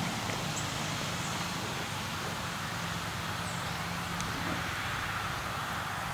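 An engine idling steadily as a low hum, with a few faint high chirps from birds.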